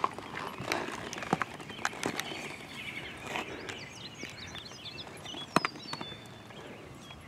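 A horse's hooves clopping on asphalt a few times as it is brought to a halt, then high chirping from a small bird and one sharp click.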